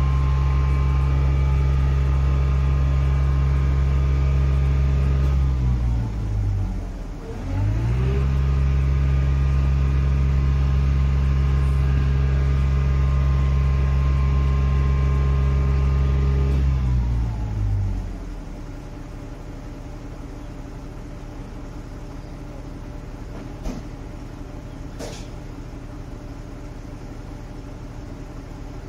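Engine of a truck-mounted boom lift running steadily, driving the boom. About six seconds in its pitch dips sharply and climbs back, and at about eighteen seconds it slows and falls away to a much quieter steady rumble, with a couple of faint clicks near the end.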